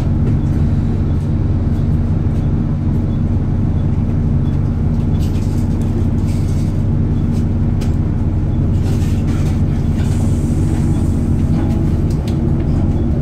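Volvo D7C diesel engine of a Volvo B7TL double-decker bus idling at a stop, with its cooling fans running, heard from inside the lower deck as a loud, steady low drone.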